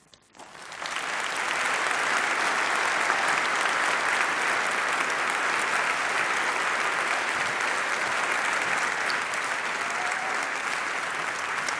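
Large audience applauding, the clapping swelling up within the first second and then holding steady.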